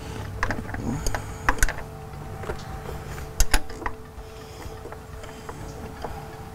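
Irregular metallic clicks and taps of a long wrench working the fuel inlet line fitting loose on a fuel filter housing, with a sharp double click about three and a half seconds in, over a faint steady hum.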